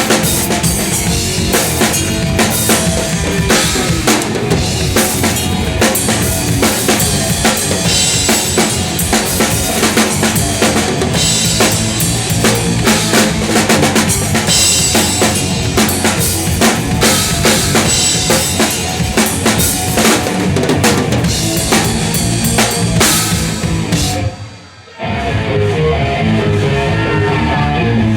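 Live thrash metal band playing, heard close to the drum kit: fast, busy drumming on bass drum, snare and cymbals with guitar and bass underneath. About 24 seconds in the band cuts off abruptly, then comes back in a moment later, guitar to the fore.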